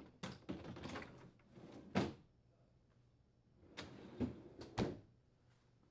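Plastic freezer basket rattling and knocking as it is seated on its track in a Samsung refrigerator's freezer drawer, with a sharp knock about two seconds in. Near the end the stainless freezer drawer slides shut on its rails with a few clunks.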